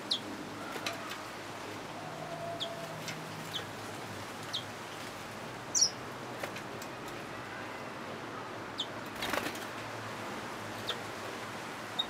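Yellow-fronted canary mule giving short, high chirps a second or more apart, one louder and higher about six seconds in, with a brief flutter of wings about nine seconds in.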